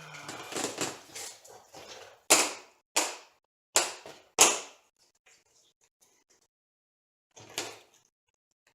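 Hands handling 3D printer kit parts: about two seconds of rustling, then four sharp knocks about two-thirds of a second apart, and one more knock near the end.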